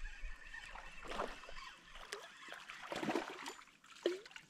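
Hooked crappie splashing at the water's surface in several irregular bursts as it is reeled in to the kayak and lifted out.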